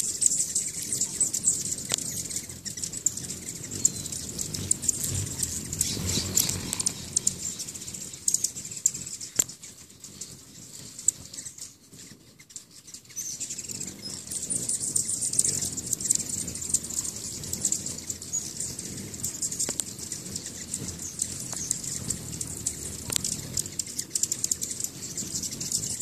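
Hummingbird wings whirring as several birds hover and dart around the nectar feeders, mixed with high, thin chirping. The sound thins out briefly about halfway through, then picks up again.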